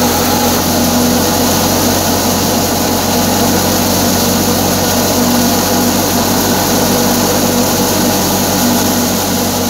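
Wheat thresher running steadily while wheat stalks are fed into it. Its spinning drum, flywheel and belt pulleys give a loud, even mechanical whir with a constant low hum.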